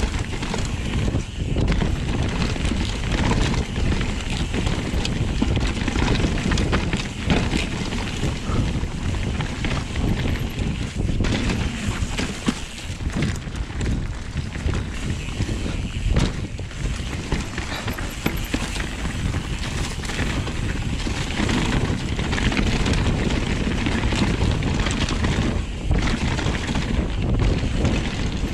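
Mountain bike ridden fast down a dirt forest trail: tyres rolling over dirt with wind noise on the microphone, and frequent knocks and rattles as the bike hits bumps and roots.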